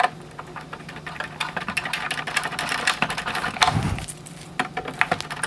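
Needle-nose pliers squeezing and working the plastic wire connector off a xenon headlight bulb: a quick irregular run of small clicks and taps, with one duller knock a little before the end. A steady low hum runs underneath.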